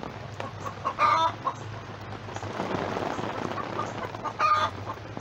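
Backyard chickens clucking, with two loud short calls, one about a second in and one near the end, over the steady patter of light rain.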